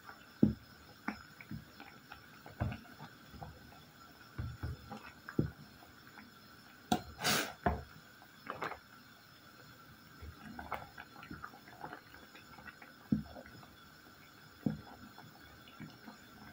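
Wooden spoon stirring chunks of fruit in a stainless-steel pot of boiling water, with irregular knocks and scrapes against the pot, loudest about seven seconds in.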